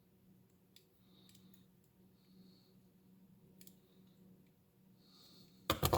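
Handling of reloading equipment at a bench: a few faint clicks, then a quick cluster of sharp, loud clicks and knocks near the end.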